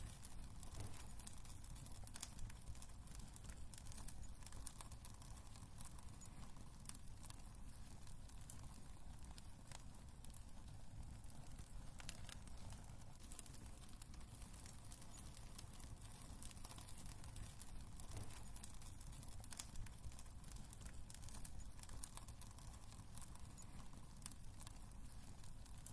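Wood fire crackling in a fireplace: frequent small irregular pops and snaps over a low, faint rumble of the flames.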